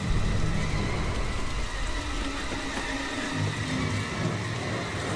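Film storm soundtrack: a steady hiss of heavy rain over a deep rumble that swells at the start. A few faint, steady low tones sit underneath.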